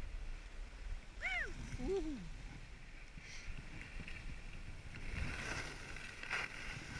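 Skis sliding through soft off-piste snow, with wind rumbling on the microphone. A short rising-then-falling shout about a second in, and louder swishing of the skis in the last two seconds.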